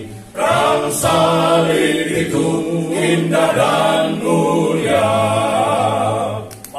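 A male vocal group of six singing a hymn a cappella in harmony, with a short breath break at the start and another just before the end.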